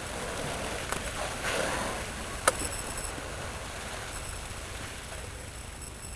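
A killer whale exhaling at the surface: one short, breathy whoosh about a second and a half in, over steady wind and water noise. A single sharp click comes about a second later.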